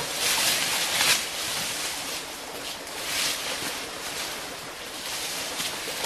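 Dry leaf litter and brush rustling and crunching in swells as someone scrambles up a leaf-covered slope, loudest in the first second and again around three seconds in.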